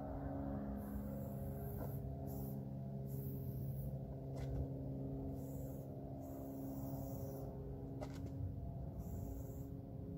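Aerosol spray paint can hissing in short bursts with gaps between them, over a steady low hum of several held tones. A few sharp clicks fall about two, four and a half and eight seconds in.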